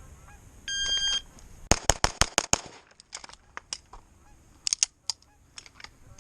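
A shot timer's start beep, then a pistol fired six times in about a second, a fast string like a Bill drill. Fainter sharp cracks follow over the next few seconds.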